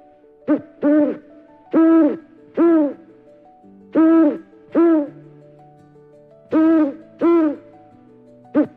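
Owl hooting in pairs of calls, each hoot rising and falling in pitch, the pairs repeating about every two and a half seconds, four times with a fifth starting at the end.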